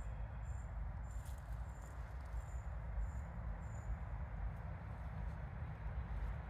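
A small bird giving a series of high, thin peeps, about two a second, that fade out about four seconds in, over a steady low rumble on the microphone.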